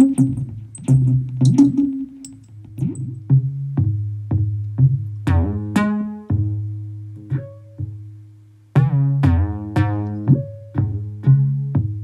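Make Noise Shared System modular synthesizer playing an electronic sketch: short plucked notes that die away quickly, over a low held bass tone, with a brief gap about nine seconds in.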